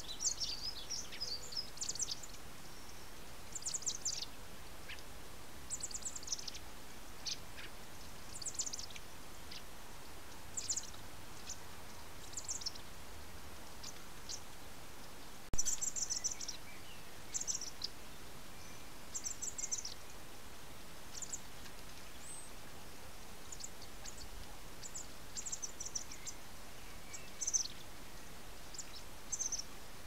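Eurasian blackbird fledgling begging to be fed by the adult male: thin, high-pitched calls repeated in short clusters every second or two, over a faint steady hiss. One brief knock about halfway through.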